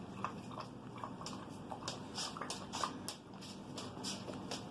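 A wolf chewing and mouthing wet, shredded paper towel: soft, irregular wet clicks and crackles, coming thickest from about one to three seconds in.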